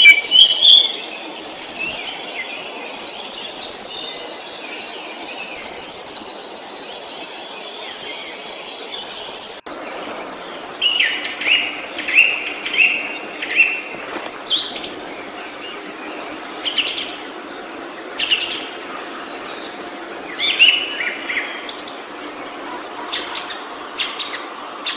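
Several songbirds singing in a woodland chorus: repeated short trills and chirping phrases from different birds over a steady background hiss.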